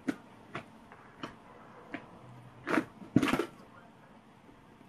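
A few soft, short clicks spaced about half a second apart, then two louder knocks or bumps close together around three seconds in, the second the loudest.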